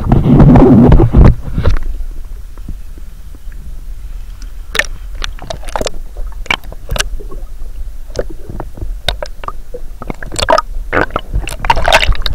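Muffled underwater sound from a camera dunked in lake water: a loud low rush of water in the first second and a half as it goes under, then scattered clicks, knocks and gurgles.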